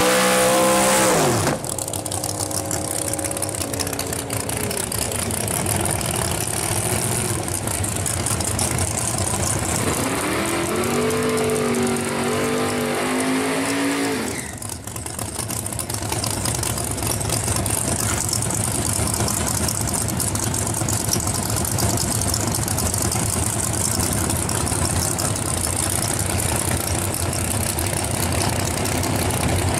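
1941 Willys drag car's engine revving hard through a burnout, the revs falling away sharply about a second and a half in. It then runs on, rising and falling once in pitch, and after a break settles into a steady run at lower revs.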